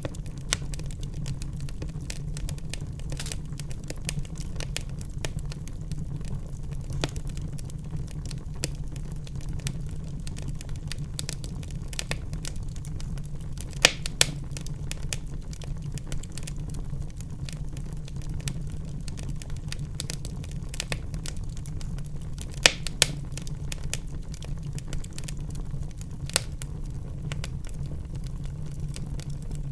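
Wood fire in a fireplace crackling steadily over a low rumble, with frequent small pops and a few louder snaps about halfway through and again about three-quarters of the way in.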